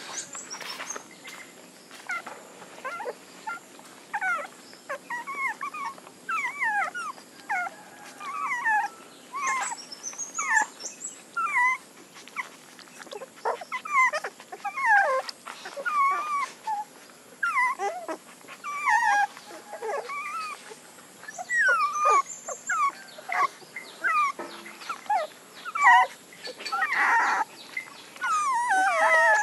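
A litter of young puppies squeaking and whimpering while they nurse: many short, high squeaks that slide in pitch, one or two a second.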